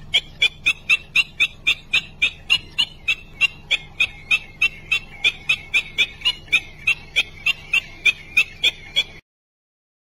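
Black-winged stilt calling a short, sharp note over and over, evenly spaced at about three to four a second, until it cuts off suddenly near the end.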